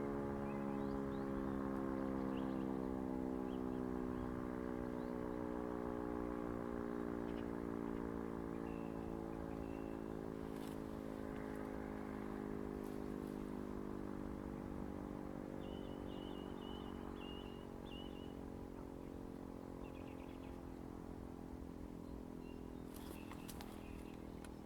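E57 electromechanical siren winding down, its tone slowly falling in pitch and fading. A few faint bird chirps are heard over it.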